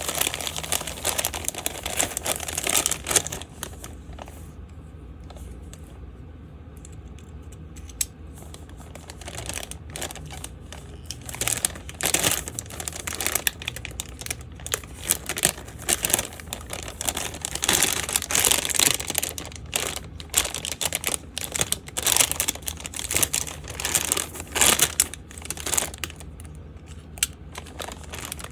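Packaging being handled and crinkled: irregular crackling rustles and small clicks, with a quieter pause from about four to eight seconds in.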